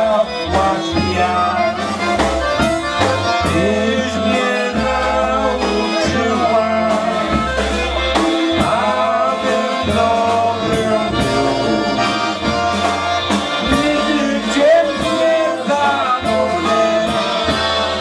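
Live polka band playing a waltz, with men singing along into microphones over a steady bass line.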